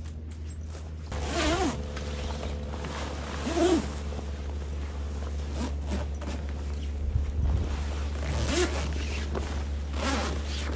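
Zippers on canvas tent wall panels being pulled along in several separate strokes, about four louder zips with smaller tugs between, over a steady low hum.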